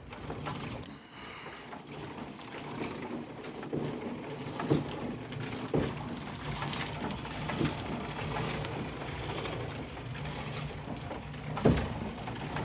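Wooden foot-treadle lathe running, its treadle, flywheel and belt working with a steady rumble and clatter, and knocks recurring every second or so.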